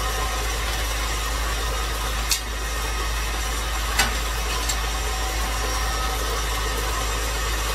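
KitchenAid stand mixer running steadily, its wire whisk beating butter, sugar and eggs into sponge-cake batter. Two short clicks about two and four seconds in.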